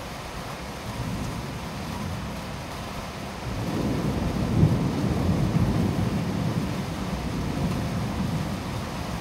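Heavy downpour hissing steadily. A long, low rumble of thunder swells in about three and a half seconds in, is loudest near the middle, and trails off over several seconds.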